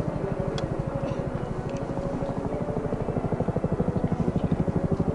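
CH-47 Chinook tandem-rotor helicopter flying overhead, its rotors beating in a rapid, even pulse that grows louder from about three seconds in as it comes closer.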